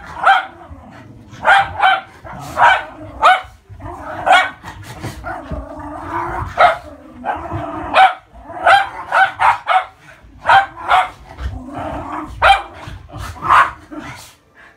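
Schnauzers play-fighting: many short, sharp barks in quick runs, with growling in between. The barking stops just before the end.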